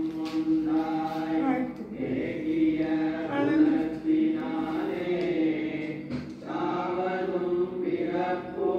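Chanted singing: voices holding long notes over a continuous low drone, pausing briefly twice.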